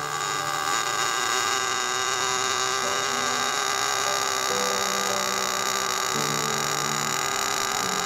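Traxxas TRX 3.3 two-stroke nitro engine idling with a steady high buzz.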